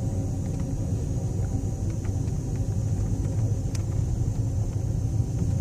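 Steady low rumble and road noise of a moving vehicle heard from inside the cabin, with a few faint clicks, the clearest a little over halfway through.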